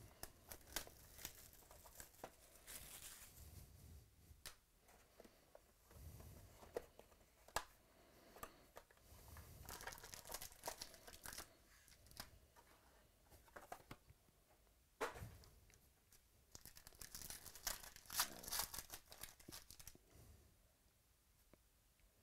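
Plastic shrink wrap and foil card packs being crinkled and torn open by hand, with scattered sharp clicks. The sound is faint, and the loudest burst of tearing comes a few seconds before the end.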